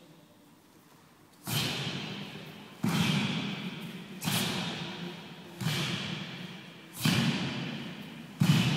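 Six sharp thuds, about one every 1.3 seconds, each ringing on and fading in a large hall. They come from a group of taekwondo students striking and landing in unison during a pattern.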